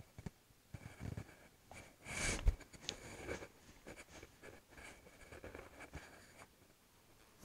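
Faint rubbing and handling noises as a board is wiped with a cloth. About two seconds in comes a louder short hiss, ending in a soft thump.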